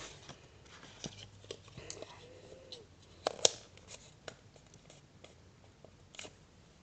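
Hands handling small cosmetic products: scattered light clicks and rustles, with two sharper clicks about three and a half seconds in.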